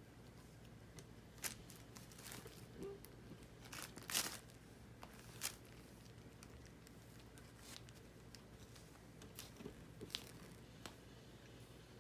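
Faint, scattered rustling and crinkling as a cat paws and noses a fluffy duck-down toy and a plastic wrapper on the floor, with a louder crackle about four seconds in.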